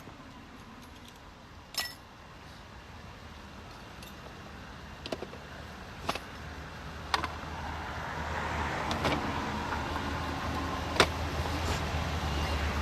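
Scattered metallic clinks and clanks of the jack and tire tools being handled on the roadside, over a low vehicle rumble that grows louder through the second half.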